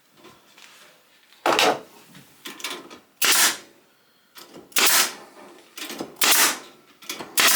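Staple gun firing staples through stainless steel mesh into the wooden frame of a beehive floor: five sharp clacks about a second and a half apart, with quieter handling noises between.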